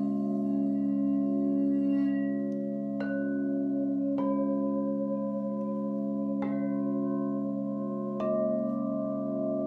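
Crystal singing bowls ringing in several steady, overlapping tones. A bowl is struck with a mallet four times, starting about three seconds in and then every second or two, and each strike adds a fresh ringing note over the sustained hum.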